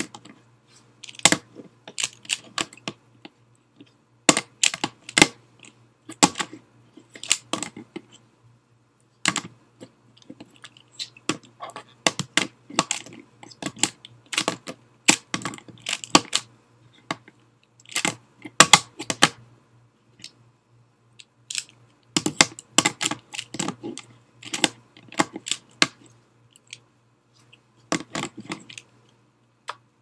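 Plastic 3x3 speedcube clicking and clacking as its layers are turned fast with one hand, in quick runs of turns broken by short pauses.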